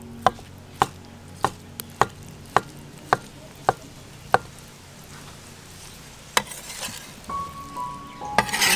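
A kitchen knife chopping through a block of congealed blood onto a wooden cutting board: about eight even knocks, a little under two a second, which stop about halfway through. Soft music comes in near the end.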